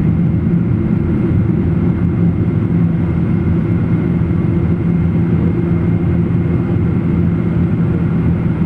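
Steady cabin drone of a Boeing 777 airliner: engine and airflow noise heard from inside the aircraft, a deep unchanging rumble with a steady low hum.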